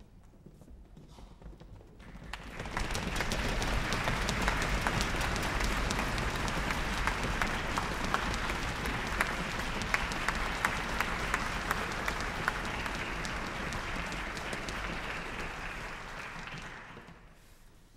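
Audience applauding, a dense patter of many hands clapping that swells in about two seconds in, holds steady, and dies away near the end.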